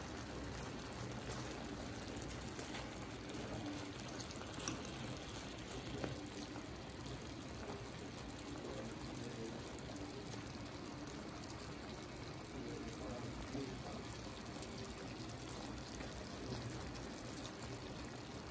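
Chicken pieces and shredded cabbage cooking in a frying pan with a steady, quiet hiss, and a few light clicks of a fork against the pan.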